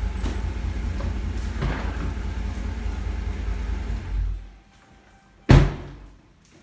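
Truck engine idling with a steady low rumble, switched off about four seconds in, followed a second later by one loud door slam.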